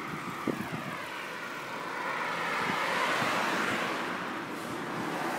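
A car overtaking from behind: its tyre and engine noise swells to a peak about three seconds in and stays up, over the steady rattle and wind of the moving bicycle.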